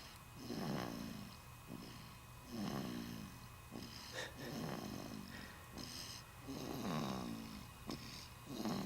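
A four-week-old baby snoring in sleep, one snore about every two seconds.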